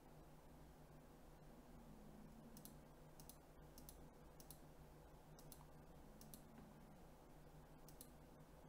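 Near silence: faint low room hum with about a dozen soft, scattered clicks.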